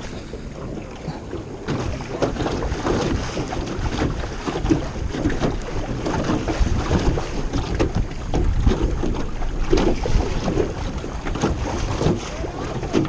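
Jon boat moving on choppy water: wind buffeting the microphone and waves slapping the hull in an uneven run of splashes, getting louder about two seconds in.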